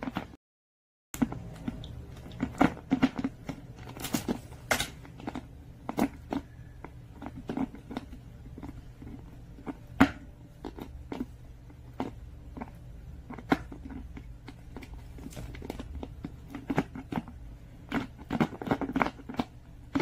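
French bulldog gnawing at the cap of a plastic water bottle, trying to get it open: irregular clicks and crackles of teeth and plastic. The sound cuts out for under a second just after the start.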